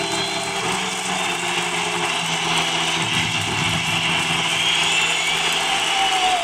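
Steady roar of a large stadium crowd cheering, with the last of the music fading out in the first two or three seconds.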